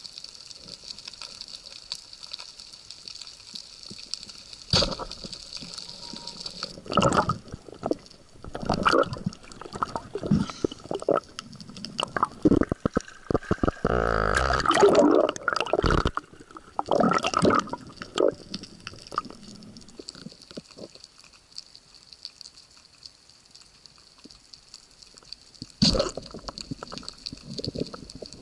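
Water splashing and sloshing around an underwater camera as a spearfisher surfaces, with a steady underwater hiss before and after. A sharp splash comes near the end as the camera goes back under.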